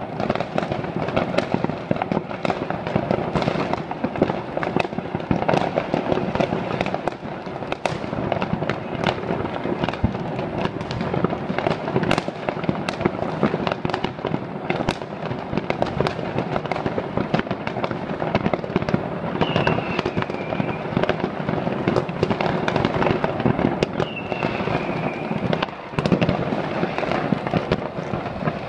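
A continuous barrage of New Year's Eve consumer fireworks and firecrackers going off across a city, near and far: a steady rattle of bangs and crackling with no let-up. Two brief high whistles sound late on.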